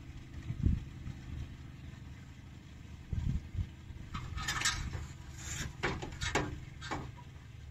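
Volvo Penta diesel engine idling steadily, with several short metallic clinks and rattles about halfway through.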